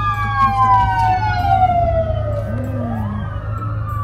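Emergency-vehicle siren wailing: its pitch falls slowly, then starts climbing again about two and a half seconds in. A steady low hum runs underneath.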